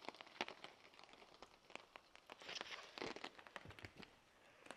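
Faint, irregular taps of raindrops on a tarp shelter, with a couple of short soft rustles near the middle.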